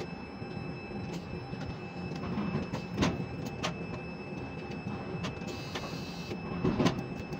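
Steady mechanical hum of a ship-to-shore quay crane as heard in the operator's cab, with two sharp clanks, about three seconds in and near the end.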